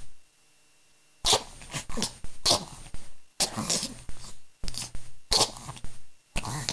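A pet sneezing in a rapid series of short, sharp sneezes, about eight over five seconds, starting about a second in; the owner suspects something got up its nose.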